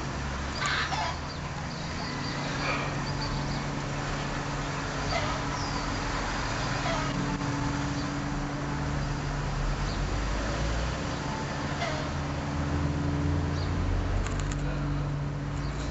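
Outdoor background noise: a steady low hum under an even hiss, with short high chirps or calls every few seconds.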